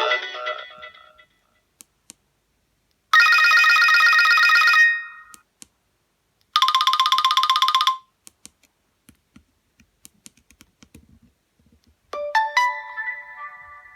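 Nokia Asha 302 ringtones played one after another: one tone fades out at the start, two short electronic tones of about a second and a half each follow with pauses between them, and a chiming tone begins near the end. Faint clicks fall in the pauses.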